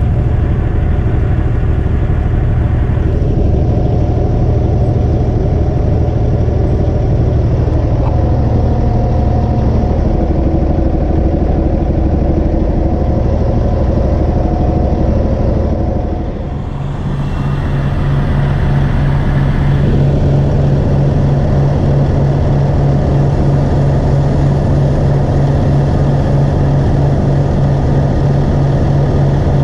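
A large engine running steadily. About halfway through it dips briefly, then settles into a different, deeper steady hum.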